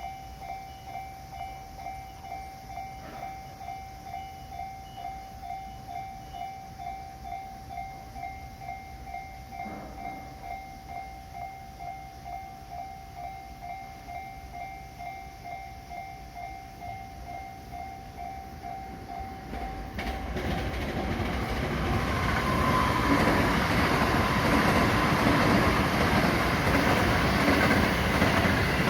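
Level-crossing warning bell ringing in a steady, even rhythm for about twenty seconds. Then a train runs through the crossing, its rumble and wheel clatter rising to the loudest part near the end.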